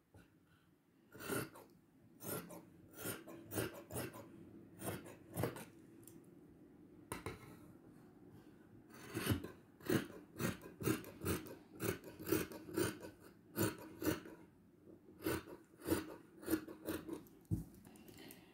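Large dressmaker's shears cutting through stretch velvet fabric, a run of crisp snipping strokes about two a second, with a lull in the middle before the cutting picks up again.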